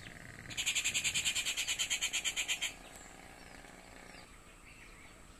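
A high, rapidly pulsed animal trill, about eleven pulses a second, lasting about two seconds and then stopping, with faint bird chirps around it.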